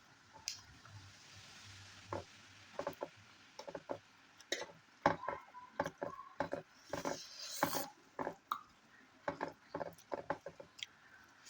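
A person eating: irregular chewing and wet mouth smacks, a few short clicks a second, with a longer noisier stretch about seven seconds in.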